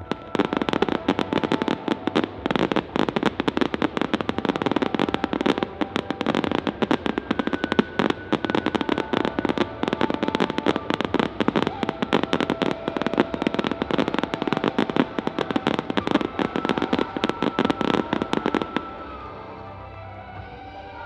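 Fireworks going off in a dense, rapid crackle of pops over background music with held tones. The crackling starts suddenly just after the start and cuts off near the end, leaving only the music.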